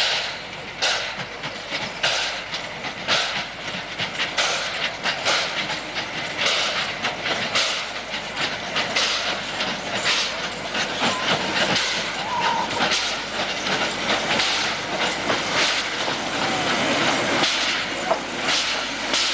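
Narrow-gauge Mallet steam locomotive working a train, its exhaust beating out short chuffs about twice a second over a steady hiss of steam, the beats coming quicker near the end as it gathers speed.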